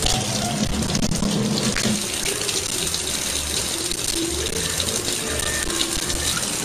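Kitchen faucet running, a thin stream of water splashing steadily into the sink.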